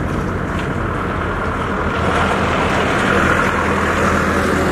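An engine running steadily under a loud rushing noise, with a constant low hum.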